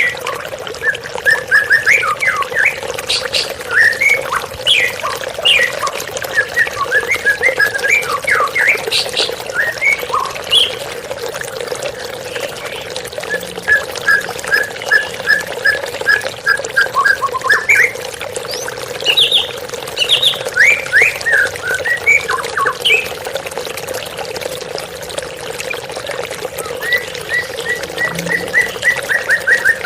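White-rumped shama (murai batu) singing a varied song of whistles and chirps, with runs of quick repeated notes in the middle and near the end, over the steady rush of running water from a waterfall.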